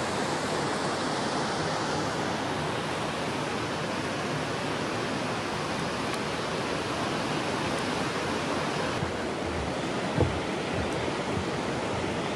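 Steady rush of the Soča river's rapids running over a rocky bed, with a single short knock near the end.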